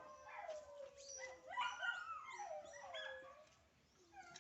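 A dog whining: faint, drawn-out whimpers that glide up and down in pitch, dying away near the end.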